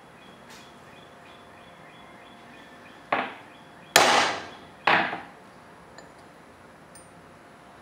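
A hammer striking a hand-forged O-1 steel center punch against a steel plate three times, about a second apart, to mark a dot. Each strike is a sharp metallic hit with a short ring, the middle one the loudest.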